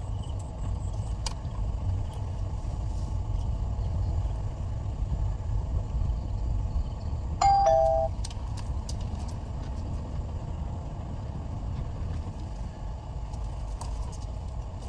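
Steady low rumble of the car's engine and tyres, heard from inside the cabin as the car is driven. About halfway through, a loud two-note electronic chime sounds, falling from the higher note to the lower like a ding-dong.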